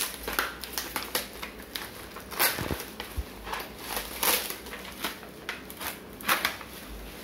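Clear plastic packaging crinkling and rustling as it is handled and pulled about, with irregular crackles and several louder sharp snaps.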